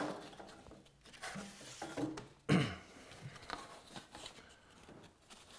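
Thin bent wooden guitar sides being handled and fitted together: several light knocks and rubbing of wood on wood, the loudest knock about two and a half seconds in.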